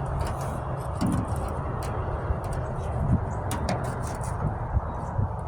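Steady low background rumble with a few scattered light clicks and taps.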